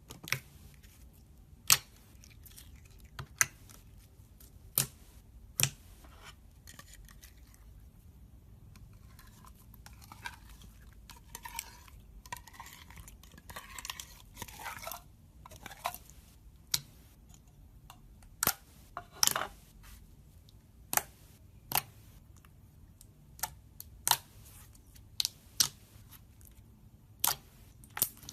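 Hands working slime: a run of sharp clicks and pops, about one every second or two, with a stretch of softer crackling in the middle.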